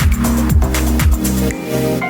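Electronic dance music with a steady, pounding beat that drops out about one and a half seconds in, leaving held synth tones.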